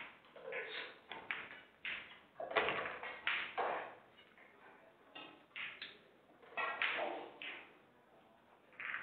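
Pool balls clicking as a shot is played near the start, then indistinct voices talking on and off.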